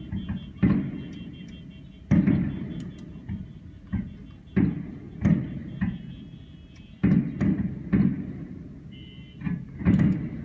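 Aerial fireworks shells bursting at a distance: a series of deep booms, about one a second, each dying away with a short echo.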